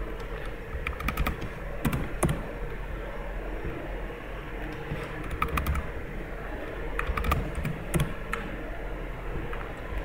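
Computer mouse and keyboard clicks in several short runs, spaced a few seconds apart, over a faint steady hum.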